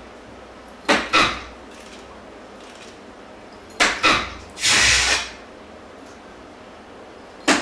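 Soft-tip darts striking a VSPHOENIX electronic dartboard three times, a few seconds apart. Each sharp tap is followed at once by the machine's short electronic sound for the scored hit.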